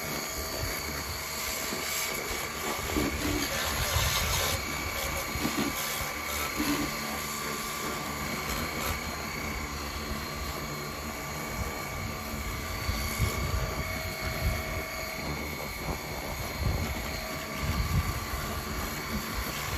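High-pressure washer running with a steady whine, its water jet hissing and spattering against a Honda self-propelled mower's cutter deck and the gravel around it.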